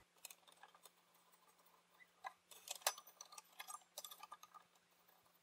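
Faint, scattered clicks and light metal taps of a long screwdriver working on small screws inside a water dispenser's fan and cooling housing, busiest in the middle.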